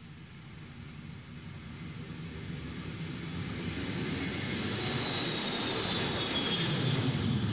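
Airplane engines in a radio-drama sound effect: a low rumble growing steadily louder, with a high whine that slides slowly down in pitch.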